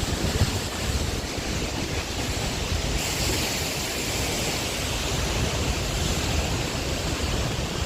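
Steady rush of Kvernufoss waterfall with wind buffeting the microphone in an uneven low rumble; the hiss turns brighter about three seconds in.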